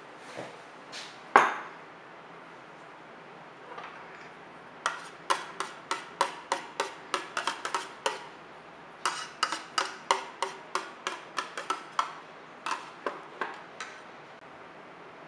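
Metal teaspoon clinking against the inside of a stainless steel loaf mould as it spreads a thin layer of liquid jelly: one louder click, then three runs of quick, even taps at about three a second with short pauses between them.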